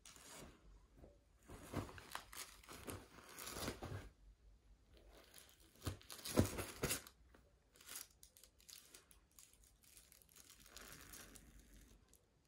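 Duvet and bedsheets rustling and crumpling in irregular bursts as a cat pounces and scrabbles on the bed, loudest about six seconds in.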